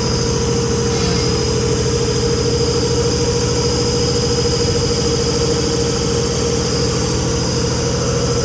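Diesel-pump test bench running a Bosch CP1 common-rail high-pressure fuel pump on its drive coupling: a steady mechanical drone with a constant whine.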